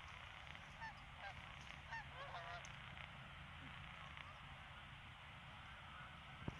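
Canada geese honking faintly, a scatter of short calls mostly in the first few seconds, over a steady low hum.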